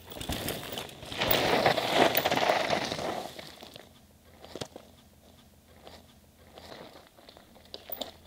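Downhill mountain bike tyres skidding and crunching over loose dirt and gravel for about two seconds, starting about a second in, then only a few faint scattered crunches and clicks as bikes roll on the gravel.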